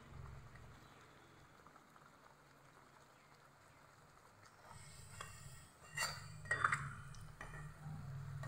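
Rice-flour puris deep-frying in hot oil in a kadhai, with a faint sizzle. From about halfway in, a steel slotted spoon clinks and scrapes against the pan, the loudest knocks coming twice close together near the end.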